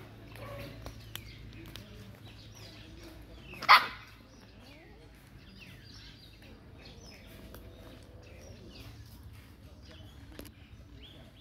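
A dog barks once, short and loud, about four seconds in; around it are only faint chirps.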